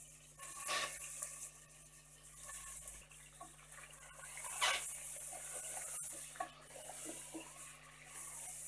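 Raw mutton pieces sizzling in hot oil in a pressure cooker, with louder surges of sizzling as more meat is dropped in, and a wooden spatula stirring and scraping the meat in the pot near the end.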